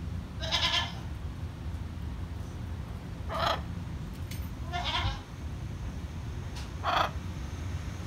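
Blue-and-yellow macaw giving four short, harsh squawks a second or two apart.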